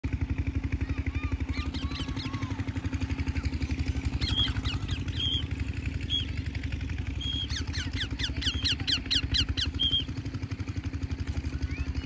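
An engine running steadily with a low, regular throb of about ten beats a second, the loudest sound throughout. Over it, from about four seconds in, a bird gives shrill calls, with a fast run of them between about seven and ten seconds.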